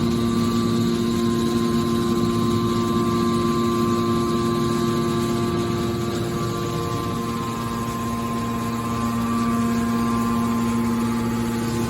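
Horizontal hydraulic metal baler running: a steady mechanical hum with a few held tones from its hydraulic power unit. The tones fade for a moment past the middle and then come back.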